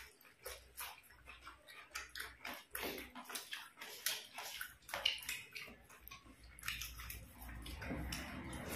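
Faint wet squelching and smacking of people eating rice and chicken curry with their bare hands: fingers squishing rice into curry on the plates and mouths chewing, heard as short, irregular clicks.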